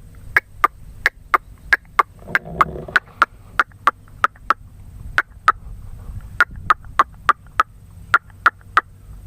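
Bird call: a fast, even series of sharp clicking notes, about three a second, with a couple of short pauses, stopping near the end.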